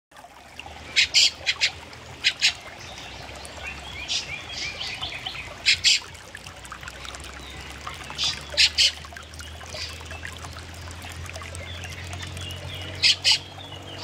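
Fieldfares calling: short, sharp, harsh calls, mostly in quick pairs, repeated every few seconds, with softer high chirps in between.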